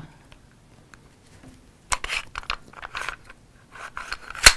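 Clicks and rattles of a Beretta 92-style CO2 BB pistol being handled and its parts worked, with one sharp, loud click near the end.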